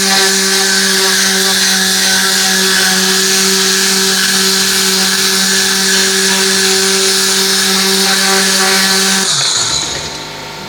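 An electric motor on car-cleaning equipment runs steadily with a low hum and a strong hiss of air, then winds down about nine seconds in.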